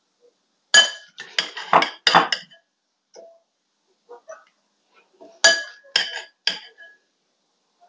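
Metal spoon clinking against a glass bowl while serving salad: two bursts of several sharp, ringing taps, one about a second in and another about five and a half seconds in.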